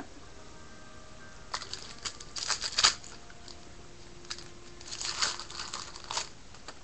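Foil trading-card pack wrappers being torn open and crinkled by hand, in two bouts: one about a second and a half in, the other about five seconds in.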